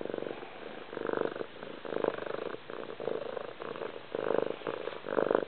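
Domestic cat purring very loudly, a fast rattling purr that swells and fades with each breath in and out.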